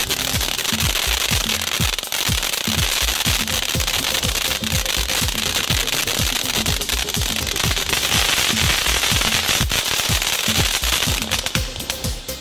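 Ground fountain firework spraying sparks with a steady hiss and dense crackling pops, which fade out near the end. Under it runs music with a steady, evenly spaced bass beat.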